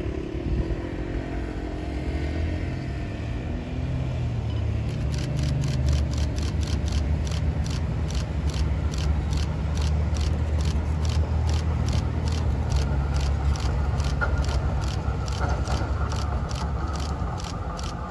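Street traffic and an approaching tram running as a steady low noise. From about five seconds in, a regular ticking of about three ticks a second joins it.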